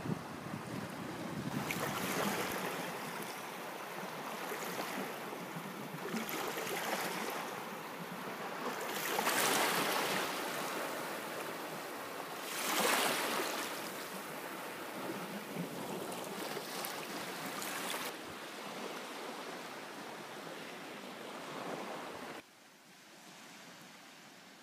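Small waves washing onto a sandy shore, coming in swells every few seconds, with wind on the microphone. About 22 seconds in the sound suddenly drops to a quieter wind hiss.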